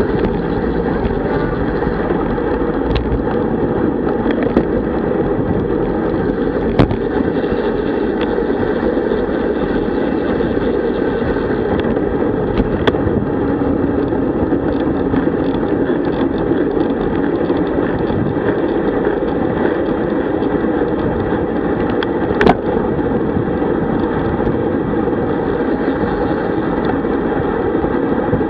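Steady wind and road noise from a road bicycle ridden fast in a group, air rushing over the bike-mounted camera's microphone along with tyre noise on asphalt. A few sharp clicks or knocks stand out, the loudest about 22 seconds in.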